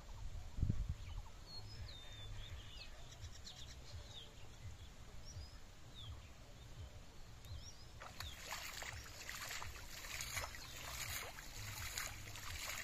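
Shallow pond water sloshing and splashing as a fishing net is hauled in by hand, starting about eight seconds in. Before that, small birds chirp faintly over a low rumble.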